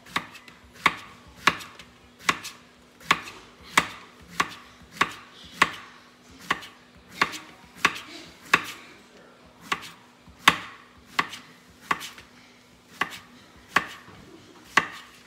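Chef's knife slicing a zucchini into rounds on a plastic cutting board: a steady series of crisp knife strikes through the vegetable onto the board, roughly three every two seconds.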